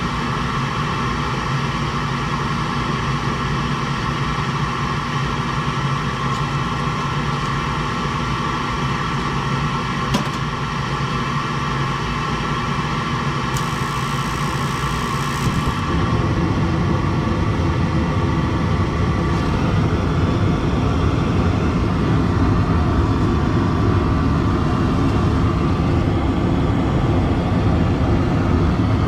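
Lennox gas package unit starting a heating cycle: the combustion inducer motor runs with a steady hum, and about halfway a deeper rumble joins and the sound gets a little louder, as the gas burners light.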